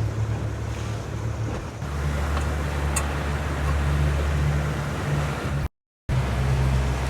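A motorboat's engine running under way, a steady low drone under the rush of wind and water spray, with wind buffeting the microphone. The engine note shifts lower about two seconds in, and the sound cuts out for a moment about six seconds in.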